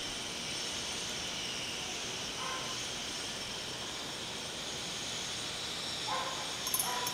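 Steady hiss of room noise, with a few faint short animal calls, one about two and a half seconds in and two near the end, and a few small clicks near the end.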